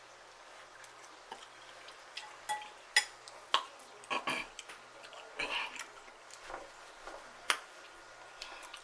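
Close-miked eating sounds: scattered wet mouth clicks and short bursts of chewing, with a few sharper clicks.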